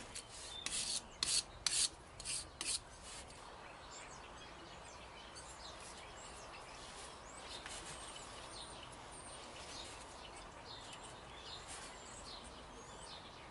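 Sandpaper rubbed over a copper battery-cable ring lug to clean off corrosion, several quick scraping strokes in the first three seconds, then faint birdsong.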